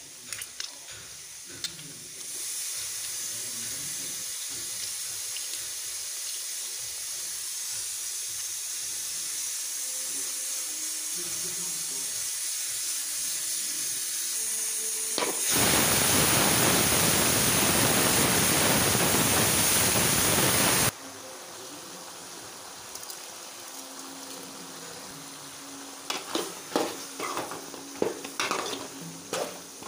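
Country chicken pieces sizzling in oil in an aluminium kadai, a steady hiss. Past the middle a much louder rushing noise runs for about five seconds and cuts off suddenly. Near the end a spatula scrapes and knocks against the pan as the chicken is stirred.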